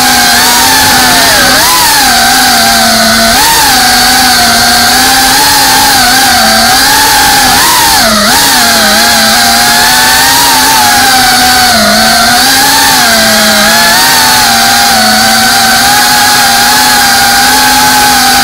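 Brushless motors and propellers of a GEPRC Cinelog35 Performance FPV drone, heard through its onboard camera: a loud, steady buzzing whine whose pitch dips and recovers several times as the throttle changes.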